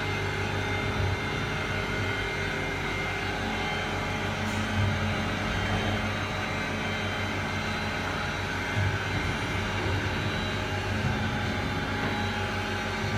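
CNC sharpening machine for carbide-tipped circular saw blades running with a steady hum and drone.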